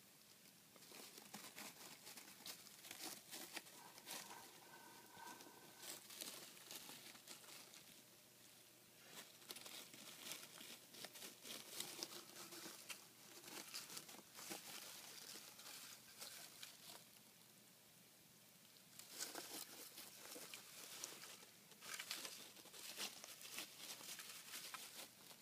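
Pet hedgehog rummaging through wood-shaving bedding: faint, irregular rustling and crackling of the shavings, with a quieter lull and then denser spells of rustling near the end.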